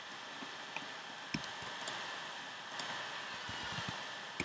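Scattered light clicks of a computer keyboard and mouse over a steady hiss.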